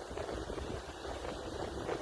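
Strong wind buffeting the microphone: a steady, gusting low rumble with hiss.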